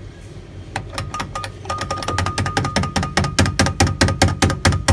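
Electronic sound from a coin-operated kiddie ride's speaker: a quickening run of sharp, knock-like percussive strikes, about six a second, growing louder, with a steady high beep-like tone held through the middle.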